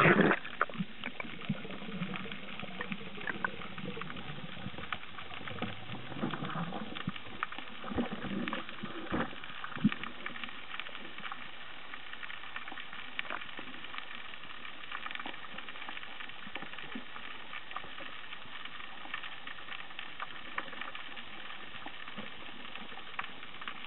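Underwater sound heard through a diving camera's housing: a loud splash-like burst as the camera goes under, then a steady crackle of fine clicks over the reef, with a few low rumbles and bubbling in the first ten seconds or so.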